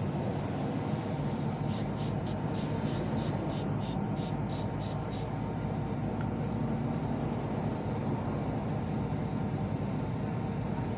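A pump-spray bottle squirted about a dozen times in quick succession, roughly three sprays a second, starting about two seconds in and stopping around five seconds in. A steady low rumble runs underneath.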